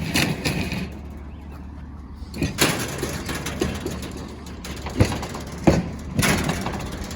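A small steel cabinet is handled and loaded onto a trailer: scraping and clattering, with two sharp metal knocks about five seconds in. A vehicle engine idles steadily underneath.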